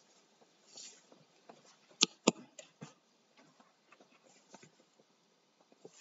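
Quiet room with faint scattered ticks and soft rustles, and two sharp clicks a fraction of a second apart about two seconds in.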